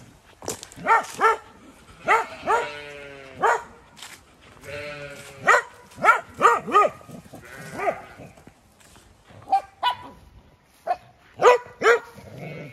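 Sheep bleating repeatedly, a string of separate calls, some short and some drawn out and wavering, with a dog barking in between.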